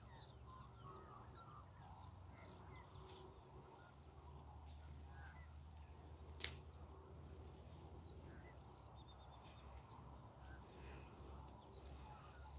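Near silence: a faint low rumble with a few faint small sounds, and one sharp click about six and a half seconds in.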